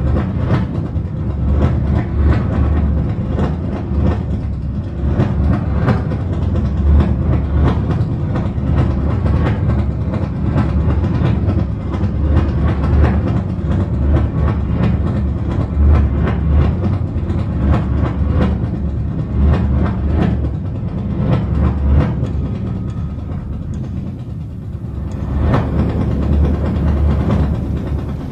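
Subway train running on the rails: a steady low rumble with the clatter of wheels over rail joints. The sound eases briefly near the end, then swells again.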